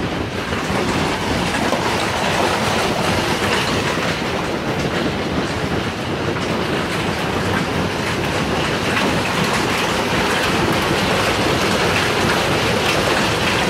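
Hail pounding on the roof and walls, heard from inside the house: a loud, steady roar of countless small impacts.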